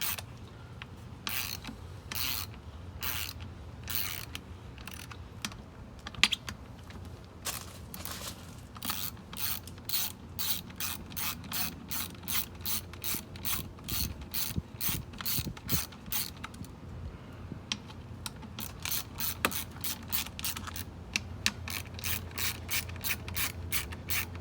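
Ratchet wrench clicking in repeated strokes as the beadlock ring bolts on a Weld Racing wheel are run down by hand. The clicks are spaced out at first and quicken to about two or three a second, with a brief pause about two-thirds of the way through.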